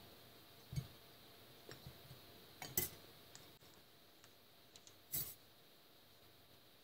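Metal parts of an old half-inch air impact wrench clicking and knocking together as it is reassembled: a few scattered light taps, the loudest a little over five seconds in.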